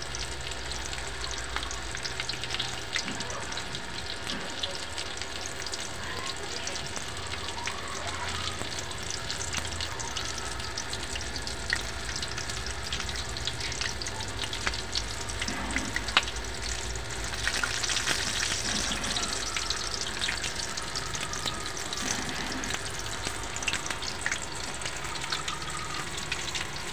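Pork legs (crispy pata) deep-frying in hot oil in a wok: a steady sizzle and crackle with scattered spitting of the oil, and two louder pops about 12 and 16 seconds in. The skin is already crisp, in the last stage of the frying.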